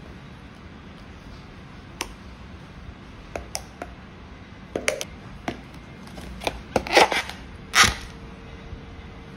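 Hands handling food containers: scattered small clicks and taps as a silicone stretch lid is pulled over the rim of an open tin can, then a few louder knocks and rustles about seven to eight seconds in, over a steady low hiss.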